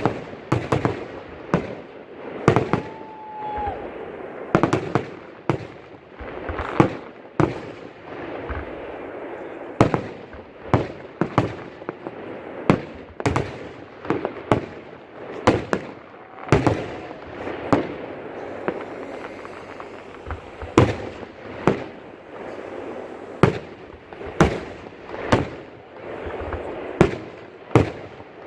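Fireworks display: aerial shells bursting in a steady run of sharp bangs, about one to two a second, each trailing off in an echo.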